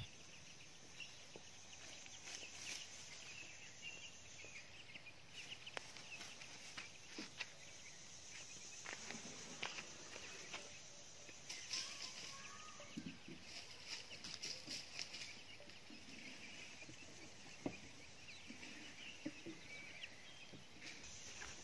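Faint farmyard ambience: steady outdoor background with scattered small bird-like chirps, a few soft chicken clucks and occasional light clicks and rustles.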